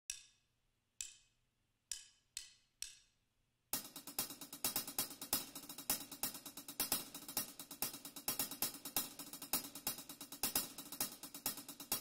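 A few single cymbal or hi-hat strikes, each ringing out, then about four seconds in a full band comes in: instrumental music with drums and a busy, steady hi-hat pattern.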